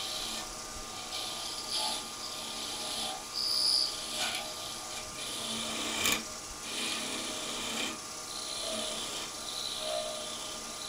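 Small turning tool cutting a thin wooden finial spinning on a wood lathe: a light scraping hiss in short, intermittent passes, as it is taken down a little at a time. A couple of sharp ticks come in the middle.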